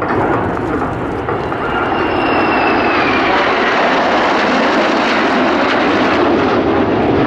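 Fixed-wing aircraft flying past at an air display: loud engine noise that builds over the first couple of seconds and then holds, with a thin high whine falling in pitch about two seconds in.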